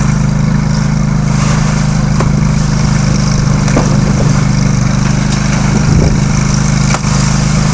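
Homemade concrete mixer's motor running steadily, a constant low drone, with a few faint knocks over it.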